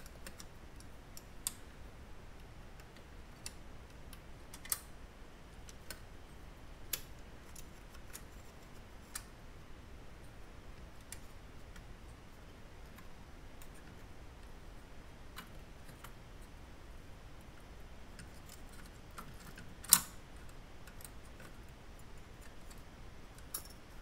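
Scattered light clicks and taps of metal parts as the Beocord 5000 tape drive's head-carrier plate is wiggled and jiggled by hand to make it fall into place, with one sharper click about twenty seconds in.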